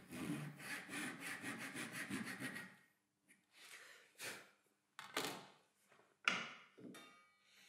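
Thin flush-cut saw laid flat on the bench, sawing through a small wooden dowel with quick short strokes, about six a second, for nearly three seconds. After that, a few light wooden knocks and a short scrape as pieces are handled on the bench.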